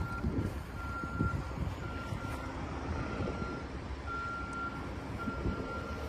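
Backup alarm of a reversing vehicle beeping: a single high tone in repeated beeps of about half a second, roughly one a second, over a low rumble.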